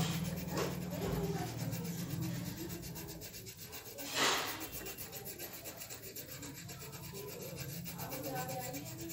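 Pencil scratching and rubbing on paper as hair is shaded in with short strokes, with a louder scrubbing stroke about four seconds in.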